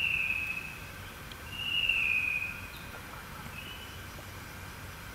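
A bird whistling: two long whistled notes, each falling slightly in pitch, then a short, slightly higher note about four seconds in, over a steady background hiss.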